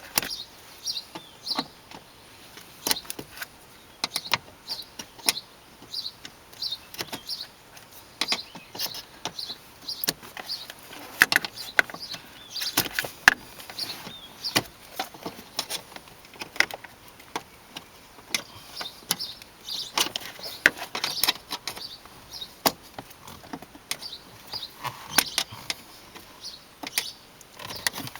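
Wire cutters nibbling plastic sheathing off the end of a hood release cable: irregular sharp snips and cracks of plastic, sometimes a few in quick succession, with short pauses between.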